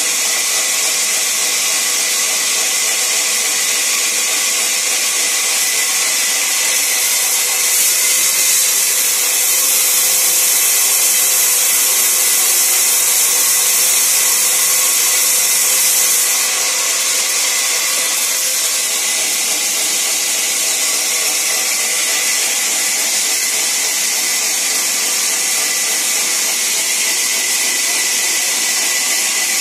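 Sawmill band saw running and ripping a long plank into thin boards: a steady, high hissing whine with many held tones, a little louder for several seconds about a third of the way in.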